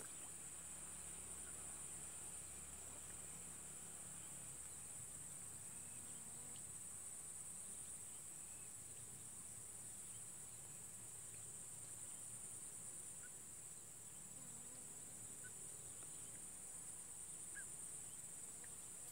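A faint, steady, high-pitched insect chorus, with a few brief short chirps in the later part.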